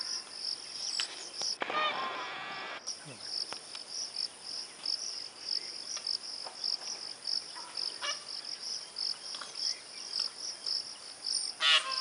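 High-pitched insect chirping steadily, about three pulses a second. Two brief, unidentified pitched calls stand out, one about two seconds in and one near the end.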